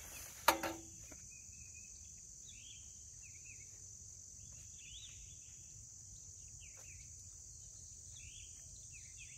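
Steady high-pitched drone of insects in the field, with short chirps now and then, and a single sharp knock about half a second in.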